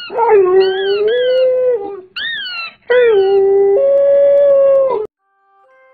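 A dog howls twice in long, held howls, the second one stepping up in pitch partway through. Over the first part come quick, high squeaks from a rubber squeaky toy being squeezed, which the dog is howling along to. The sound cuts off suddenly about five seconds in.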